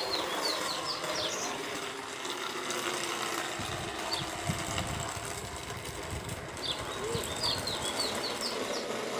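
Low rumble of a ball-bearing cart's steel wheels rolling on pavement, coming in about three and a half seconds in, with birds chirping in quick bursts of short falling notes near the start and again near the end.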